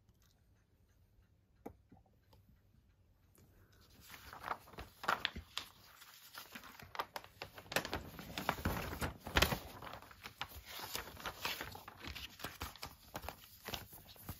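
Quiet for about four seconds, then paper rustling and crinkling as a large poster is handled, with many small sharp crackles.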